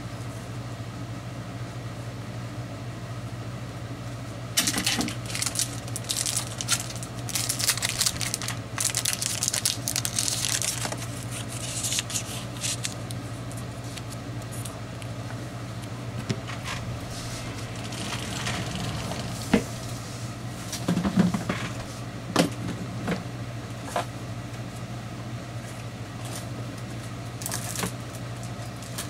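Paper and cardstock rustling and sliding as they are handled on a cutting mat, densest from about four to thirteen seconds in, with a few light taps later. A steady low hum runs underneath.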